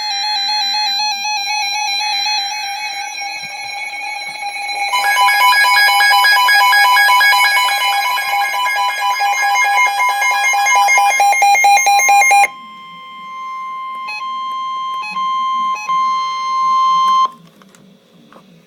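Emergency Alert System alert tones. Warbling electronic tones first, then from about five seconds in the two-tone EAS attention signal. From about twelve seconds a single steady tone sounds and cuts off near the end.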